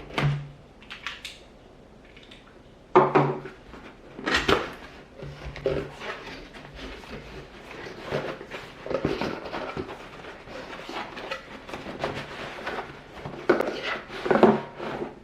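A cardboard product box being opened and unpacked by hand: irregular knocks, scrapes and clicks of the box and its contents, with rustling packaging in between.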